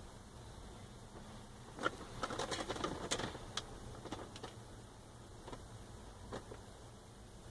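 A quick cluster of small clicks and light knocks about two seconds in, thinning out into a few single clicks over the next few seconds.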